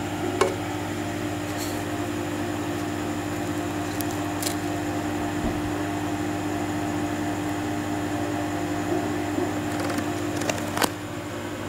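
Steady low mains hum from a powered-up valve RF signal generator, with a few faint clicks.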